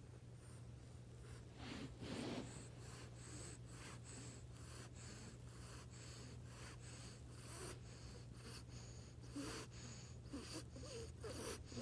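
Pet monkey sucking and snuffling at a person's fingers: a faint run of soft mouth clicks and sniffy breaths, a few a second.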